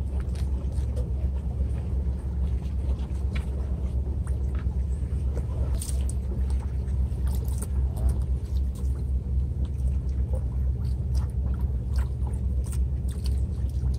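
Steady low rumble, with scattered small clicks and knocks as a plastic bait bucket and tray are handled.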